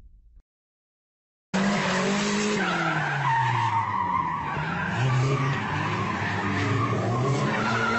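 After about a second and a half of silence, a car engine revs up and down as the car slides around, its tyres squealing in a long continuous skid.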